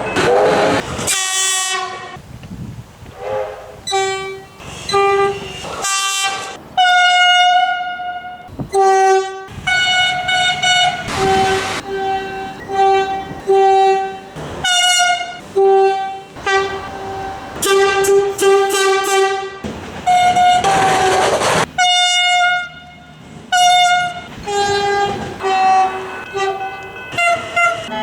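Train horns sounding a rapid series of short blasts, one after another, with a few brief rushes of train noise between them.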